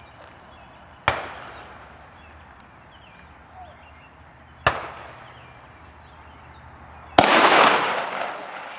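Benelli M2 semi-automatic shotgun fired three times, a few seconds apart. Each shot is a sharp bang with a trailing echo, and the third is the loudest with the longest echo.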